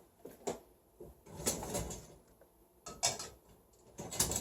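A dish being loaded into a dishwasher: a few knocks and clatters of dishware against the rack, with a longer sliding scrape about a second and a half in.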